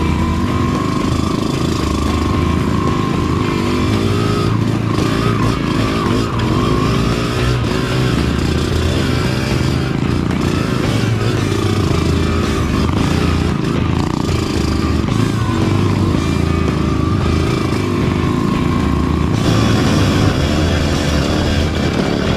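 Small dirt bike engines running as the bikes ride along a trail, their pitch rising and falling with the throttle.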